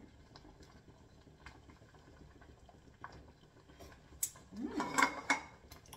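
Quiet kitchen sounds of a noodle pot being cooked: scattered faint clicks of a fork against the pot. About four and a half seconds in comes a short, louder mouth sound as the cook tastes the noodles from the fork.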